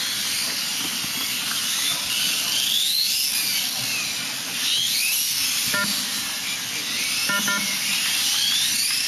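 High-pitched whine of electric 1/8-scale Kyosho Hang On Racer RC motorcycles racing. The pitch rises again and again as the bikes accelerate along the straights, over a steady hiss. A few short beeps come in the second half.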